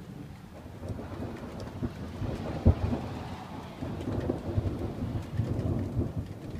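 Thunder rumbling over steady rain: the rumble swells about a second in, gives one loud crack near the middle, then keeps rolling to the end.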